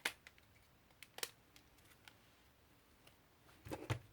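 Small items being handled on a table: a sharp click at the start and another about a second in, then a brief rustle of handling near the end.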